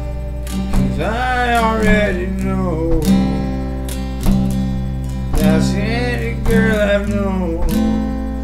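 Acoustic guitar strummed in a steady rhythm, with accented strokes about once a second. A voice sings two long, wavering phrases over it.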